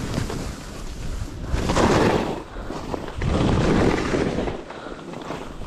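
Skis scraping across hard, icy snow through two turns, each turn a loud swell of scraping, with wind rumbling on the microphone.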